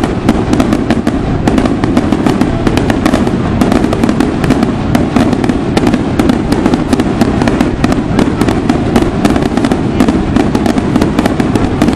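Daytime aerial fireworks going off in a dense, unbroken barrage of sharp bangs and crackles, several a second, over a continuous rumble.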